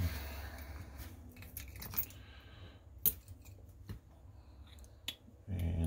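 Small metal clicks and ticks of tweezers picking up and setting down brass lock pins on a parts tray, a few sharp clicks spread out among fainter ticks.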